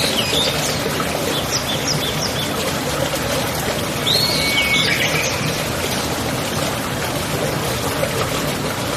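Steady running water, like a stream, with birds chirping over it: a few short calls near the start and a longer swooping call about four seconds in.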